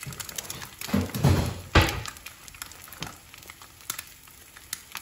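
Goose egg frying in oil in a non-stick pan, with a light scattered crackle and sizzle. About a second in comes a short louder low-pitched stretch, then a single sharp knock.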